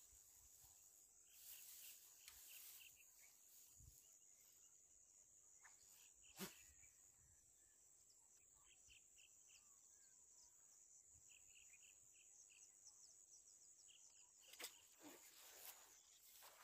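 Faint outdoor ambience: a steady high insect drone with short high chirps in little runs. A sharp click comes about six seconds in and another near the end.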